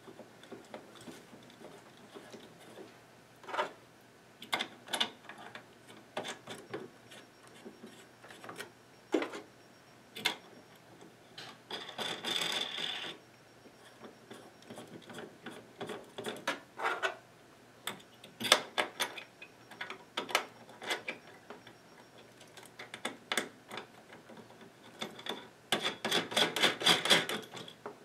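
Small irregular clicks and rattles of mounting nuts with plastic washers being hand-threaded onto the spring-loaded studs of a CPU water block, with two spells of rapid clicking, about twelve seconds in and near the end.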